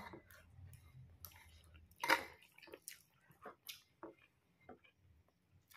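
Quiet close-up chewing and mouth sounds of a person eating rice and curry by hand, with scattered soft wet clicks and smacks, the loudest about two seconds in.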